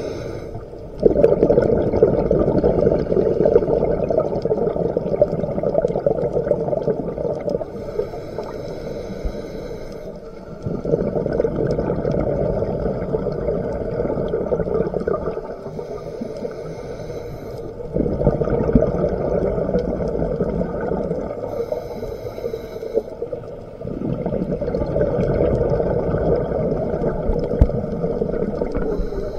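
Scuba regulator breathing underwater: four long rushes of bubbling as exhaled air vents from the regulator, each followed by a short hiss as the next breath is drawn.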